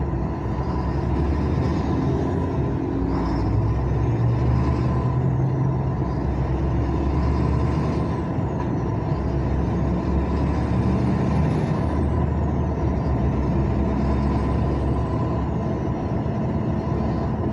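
Semi-trailer truck's engine running steadily while driving, with a faint high whine that rises and falls several times.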